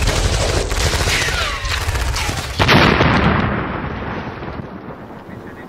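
Battle sound effect: rumbling gunfire with falling whistles, then a loud explosion about two and a half seconds in that dies away slowly.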